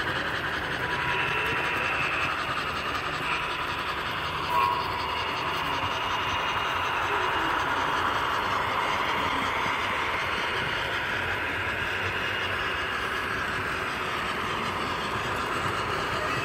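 HO scale model trains running on the layout track, a steady rolling and whirring of small wheels and motors with light clicking over the rail joints, and a short click about four and a half seconds in.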